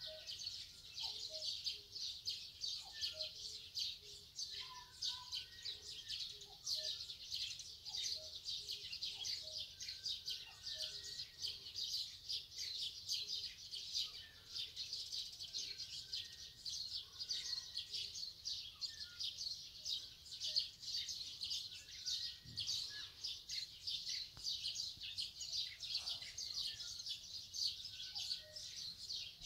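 Morning chorus of many small birds chirping without pause: a dense run of rapid high chirps, with scattered lower calls among them.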